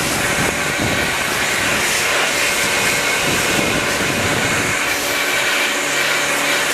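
A powered cleaning tool running steadily with a loud hiss and a faint motor hum, used to blast grime out of a bicycle frame's bottom bracket shell.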